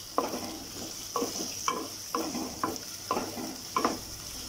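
Spatula stirring and scraping sliced onions, garlic and dried red chillies around a metal kadhai, about two strokes a second, over a steady sizzle as they fry lightly in oil.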